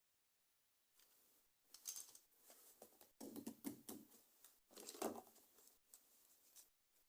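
Faint rustling and light clicking of toy packaging being handled, in several short bursts after a silent first second or two.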